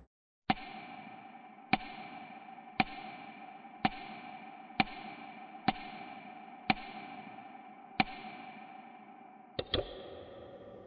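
A sound-design ticking effect: sharp ticks about once a second, each with a ringing tone that carries on between them, and a quick double tick near the end.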